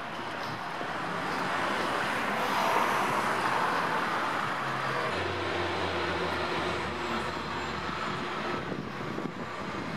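City street traffic noise: cars passing, swelling for a few seconds in the first half, then a low steady engine hum in the second half.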